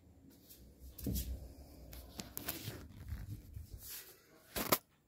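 Scattered knocks and shuffling, then a phone being picked up and handled, with a loud short clatter near the end.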